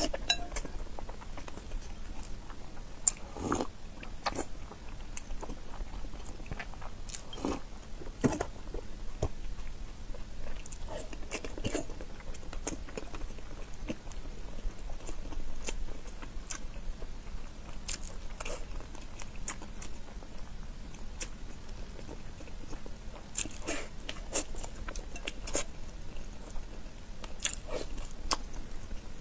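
Close-miked mouth sounds of a woman biting and chewing whole peeled boiled eggs soaked in broth: soft wet chewing with irregular short sharp clicks and smacks.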